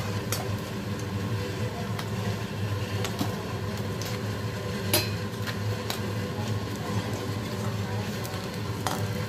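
A perforated steel slotted spoon clinks sharply against a metal kadhai a few times while fried fish is lifted from the oil; the loudest clink comes about five seconds in. A steady low hum runs underneath.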